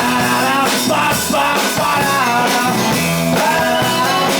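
Live rock band playing a song, loud and full, with a melody line bending in pitch over the band.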